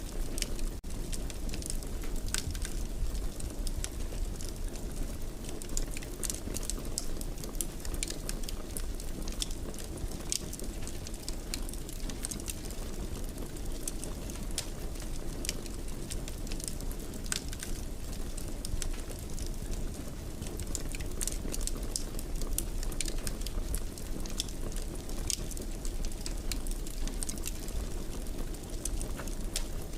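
Wood fire burning in a fireplace: a steady low rumble of flames with frequent small crackles and pops scattered irregularly throughout.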